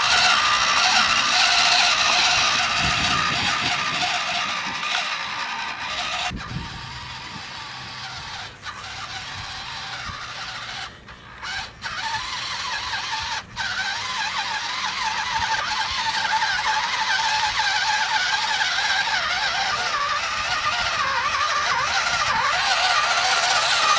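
Radio-controlled model Fendt tractor with a trailer driving through a muddy puddle, its motor and gears whining with a wavering pitch. The whine fades as the tractor moves away and grows louder again as it comes back close.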